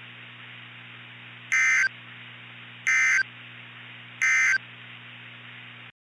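Emergency Alert System end-of-message data bursts: three short, high-pitched two-tone digital squawks, evenly spaced about 1.3 seconds apart, over a steady hiss and low hum. The hiss cuts off abruptly near the end.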